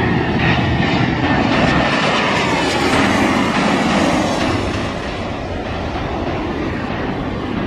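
Jet engines of a Malindo Air Boeing 737 on final approach, passing low with a loud continuous roar that eases a little about five seconds in as the airliner nears touchdown.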